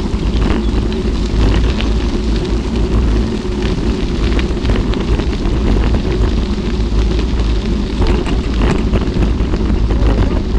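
Wind buffeting the microphone as a steady low rumble while riding a bicycle on a gravel road, with frequent crackles of the tyres over loose stones.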